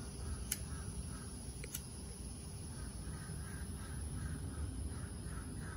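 A lighter clicks about half a second in and again just under two seconds in, as a glass pipe is lit. Behind it, crows caw faintly in a repeated series through the second half.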